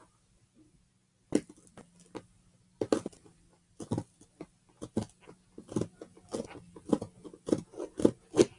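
Repeated sharp stabs of a blade into a leather Australian rules football, about two a second, coming quicker toward the end.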